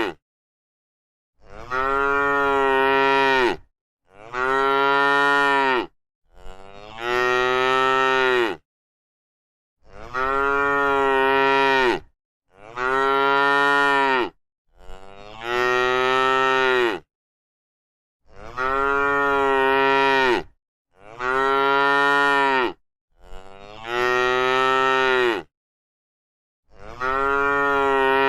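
A cow mooing over and over, about ten long moos of roughly two seconds each, each held at a steady pitch and dropping away at the end, with sharp cuts to dead silence between them.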